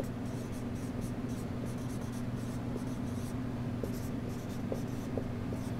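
Dry-erase marker writing on a whiteboard: a run of short, scratchy strokes one after another, over a steady low hum.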